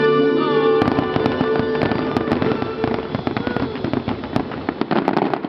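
A held musical chord from the show's soundtrack gives way, about a second in, to a dense barrage of fireworks bursts and crackling, many sharp bangs in quick succession, thinning slightly toward the end.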